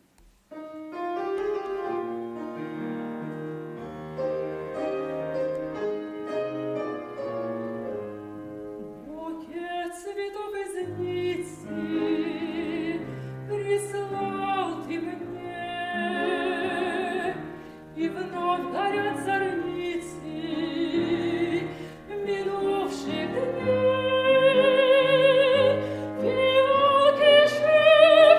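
Soprano singing a classical-style song with piano accompaniment. The piano plays alone at first, and the soprano enters about ten seconds in, singing with a wide vibrato and growing louder toward the end.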